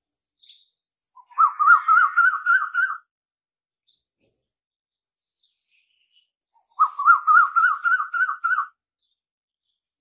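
Asian koel calling twice: each call is a quick run of about ten rising, bubbling notes lasting under two seconds, the first about a second in and the second about seven seconds in.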